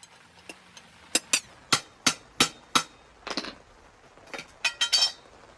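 Hammer blows on a rod driven down a Vance & Hines exhaust silencer, knocking the sleeve off after its weld has been drilled out. Six sharp metallic strikes come first, then a scrape, then a quick cluster of ringing metal clinks near the end.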